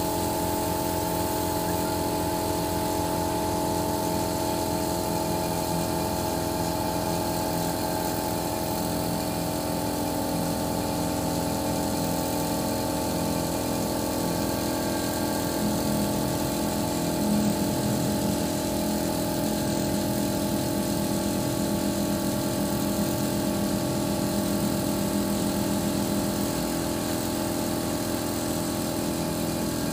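Engine of a truck-mounted boom lift running steadily, driving the hydraulics that move the raised bucket.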